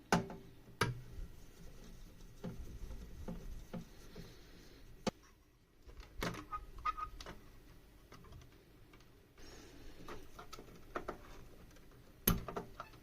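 Tools and parts being handled at an electronics repair bench: irregular clicks and light knocks, the loudest just after the start and again near the end, with a few short squeaks about six seconds in.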